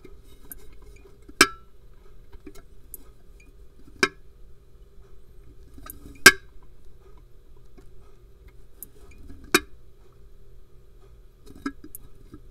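A tipping bucket rain gauge's bucket assembly tipping over on its pivot: four sharp clacks two to three seconds apart, with a fainter one near the end, over a faint steady hum.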